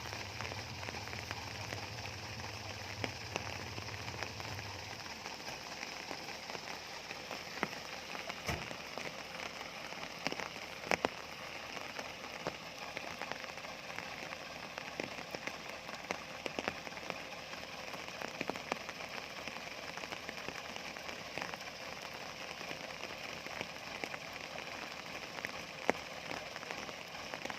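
Steady rain: a constant hiss with scattered sharp ticks of drops. A low hum underneath stops about five seconds in.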